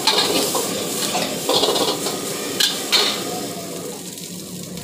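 Steel ladle and wok spatula scraping and clanking against a steel wok as rice is stir-fried, over a steady frying hiss. The strokes stop about three seconds in, leaving the hiss.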